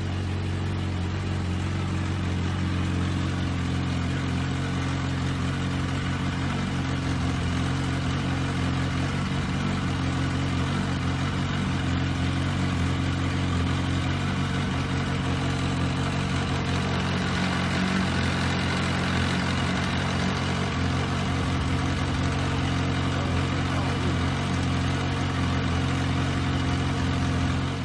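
2006 Yamaha R1's inline-four engine idling steadily.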